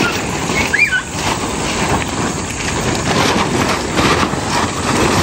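Rain falling steadily, a dense hiss, as a heavy downpour reaches the house; a brief high squeak sounds about a second in.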